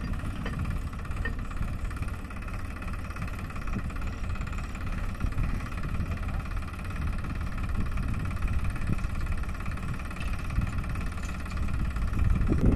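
Farm tractor's diesel engine idling steadily, a little louder just before the end.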